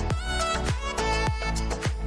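Upbeat background music with a steady beat: a kick drum about three times a second under layered melodic instruments.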